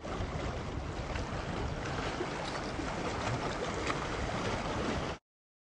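Small waves of bay water washing and splashing over shoreline rocks, a steady churning wash with little splashes in it, cutting off suddenly about five seconds in.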